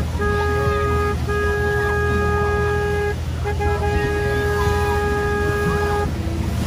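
Boat horn sounding three long blasts of one steady note with short breaks between them, over a steady low rumble.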